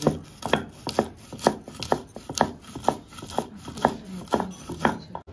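Stone roller knocking and grinding on a flat stone grinding slab (shil-nora), crushing fried pumpkin seeds: quick, repeated knocks and scrapes, about four a second.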